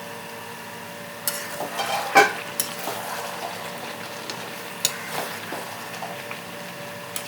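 A spoon stirring chicken in a cooking pan. It scrapes and knocks against the pan in a run of sharp clicks starting about a second in, with the loudest knock just after two seconds, over a steady hum.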